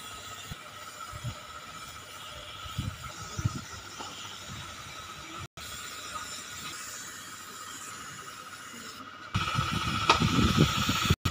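Gravity-feed spray gun hissing steadily as compressed air sprays wood stain, with a faint steady whistle in the hiss. The sound breaks off briefly a few times, and from about nine seconds in it gets louder, with an uneven low rumble underneath.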